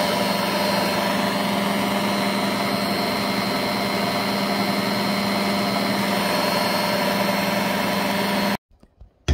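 Electric stand mixer running steadily, its beater turning through a thick cream-cheese and chocolate filling in a glass bowl. The motor hum cuts off suddenly near the end as the mixer is switched off.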